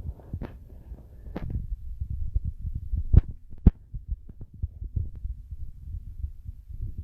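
Low, irregular thumping and rumble on a handheld camera's microphone from wind and handling, with two sharper knocks a little after three seconds in.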